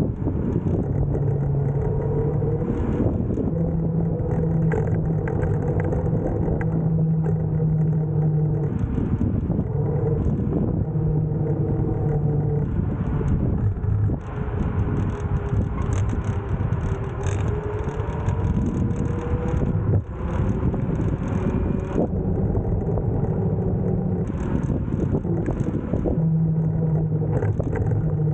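Nanrobot electric scooter riding along a street: its motor whine rising and falling with speed over a steady road rumble and wind on the microphone, with a few brief knocks.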